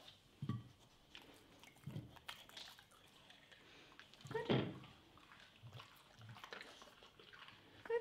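A few faint clicks and knocks of cucumber pieces being set down on plates on a glass table, with one short louder sound about four and a half seconds in.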